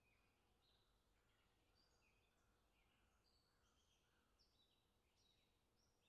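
Faint songbird chorus: several birds giving overlapping short chirps and whistled notes, over a steady low background noise.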